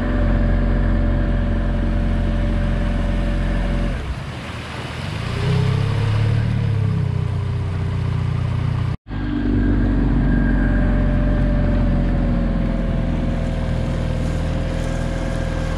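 Storm F18 four-stroke outboard motor running steadily under way while being run in. About four seconds in its note drops and changes for several seconds, and the sound cuts out for an instant about nine seconds in before the steady running resumes.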